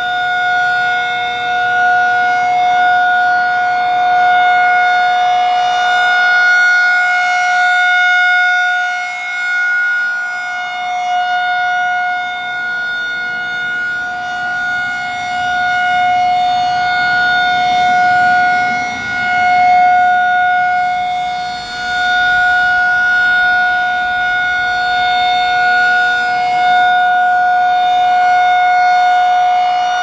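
Federal Signal 2001-SRN rotating outdoor warning siren sounding its Alert signal: one steady single tone from its chopper, holding a constant pitch while the loudness swells and fades as the horn turns.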